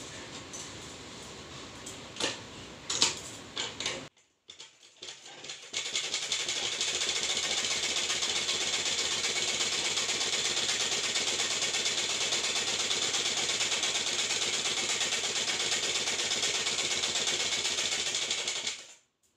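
Black straight-stitch sewing machine running steadily while stitching a seam in cloth. It starts about six seconds in and stops just before the end. Before it starts there are a few knocks and the rustle of the fabric being handled.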